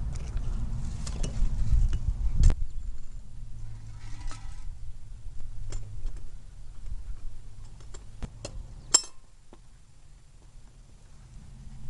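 Metal tools clinking and tapping during brass casting work: scattered sharp clicks, a short ringing clink about four seconds in and a louder click about nine seconds in, over a low rumble that fades near the end.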